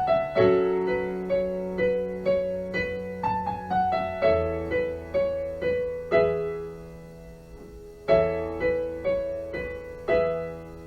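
Solo electric piano playing a slow instrumental introduction: a gentle melody of single notes over held chords. The notes die away briefly before a new chord is struck about eight seconds in, and another near the end.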